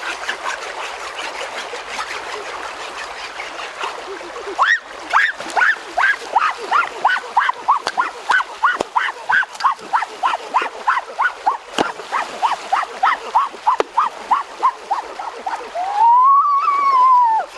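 An animal calling in a long run of short honking notes, about three a second, starting about four and a half seconds in. A longer call rises and falls near the end. Before the calls there is a steady rushing sound like running water.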